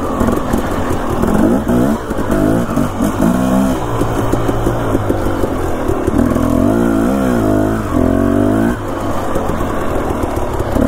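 Two-stroke dirt bike engine at low revs on tight trail, the throttle worked on and off so the pitch rises and falls several times.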